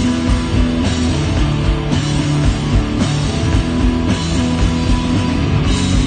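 Live rock band playing loud, with electric guitars over drums and bass, a dense, steady wall of sound with a pulsing low end.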